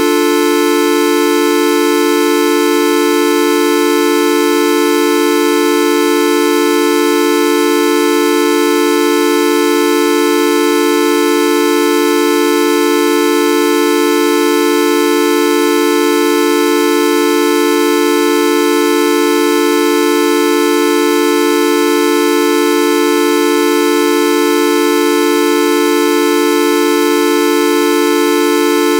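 The Videoup V1.2 sound effect: a loud, buzzy electronic tone held perfectly steady without any change in pitch or loudness, sounding like a sustained horn.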